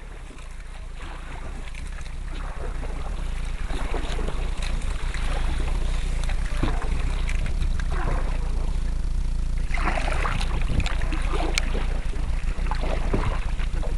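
Canoe paddles stroking through the water, with irregular splashes and swishes, over steady wind rumble on the microphone that grows louder over the first few seconds.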